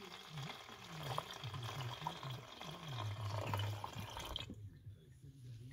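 Liquid poured from a plastic jug into a motorcycle tank, a steady splashing pour into the filler neck that stops abruptly about four and a half seconds in.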